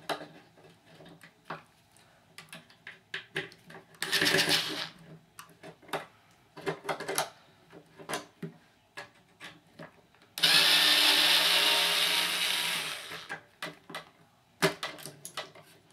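Ryobi cordless power screwdriver running on screws: a short run about four seconds in, then a longer run of about three seconds about ten seconds in. Clicks and knocks of handling the metal closer parts and screws fall between the runs.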